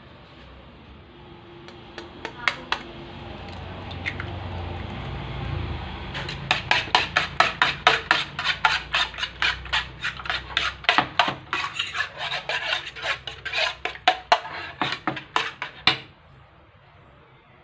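A fork beating eggs in a plate: the tines click rapidly against the plate, about four strokes a second, and stop shortly before the end. A couple of sharp taps come a couple of seconds in, before the beating starts.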